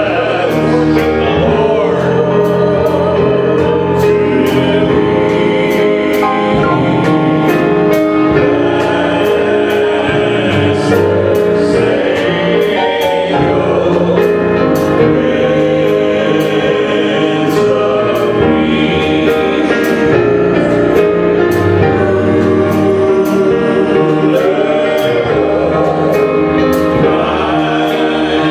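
Church worship music: a group of voices singing slow, held notes over instrumental backing with a steady beat.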